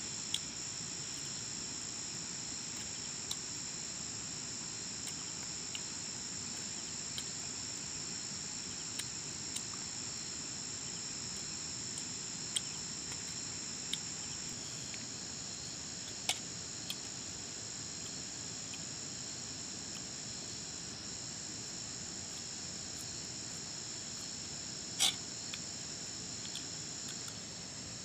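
Steady, shrill chorus of crickets and other insects, with occasional small clicks and taps scattered through it and one sharper click near the end.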